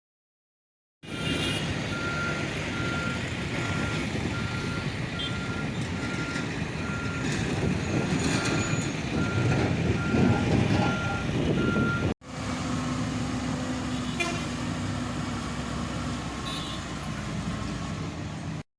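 Heavy construction truck's engine running while its reversing alarm beeps steadily about twice a second. After a sudden cut about twelve seconds in, engine noise carries on, with a steady low drone for a few seconds.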